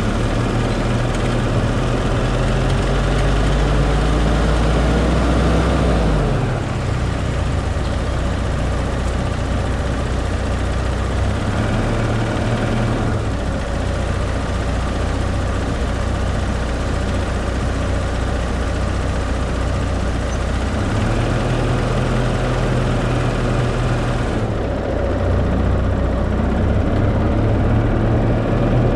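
A vehicle's engine running steadily while driving, with road noise. The low engine note shifts several times.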